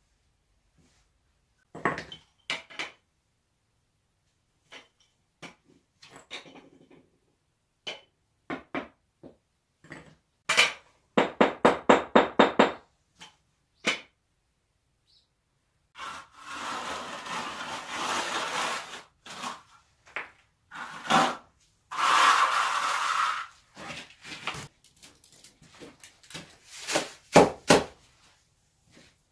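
Hand masonry work with concrete blocks and wet mortar: scattered knocks and taps, a rapid run of about ten knocks around the middle, and two long rough scraping stretches of a shovel working the mortar.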